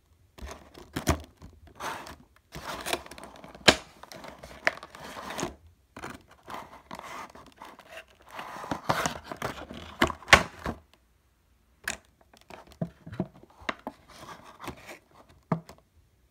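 Clear plastic blister insert of a vinyl figure's packaging being handled and pulled off: crinkling, crackling plastic with sharp clicks and scrapes. The handling pauses for about a second around the 11-second mark, then goes on more lightly with scattered clicks.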